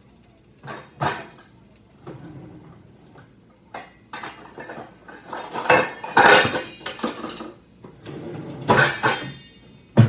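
Metal pots, pans and lids clanking and clattering as cookware is moved about. There is one clank about a second in, a busy run of clatter in the middle, and another burst near the end.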